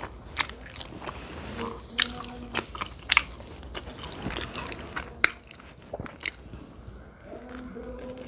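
Close-miked eating sounds of a mouthful of spaghetti and meatballs: chewing with irregular wet clicks and smacks, a few of them sharper than the rest.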